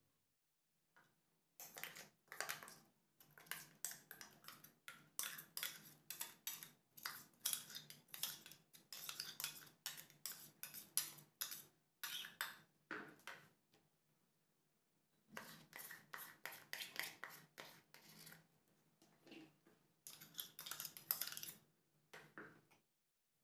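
Metal spoon scraping and clinking against a mixer-grinder jar and a plastic bowl while scooping and stirring a thick ground paste: two spells of rapid strokes with a pause of about two seconds in between.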